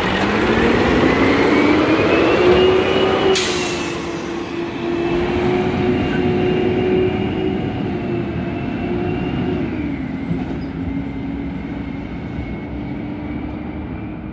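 Diesel engine of a 2010 Peterbilt Wayne Curbtender automated side-loader garbage truck rising in pitch as the truck pulls away, with a short sharp hiss about three seconds in. It then runs steadily, drops in pitch about ten seconds in, and fades as the truck drives off.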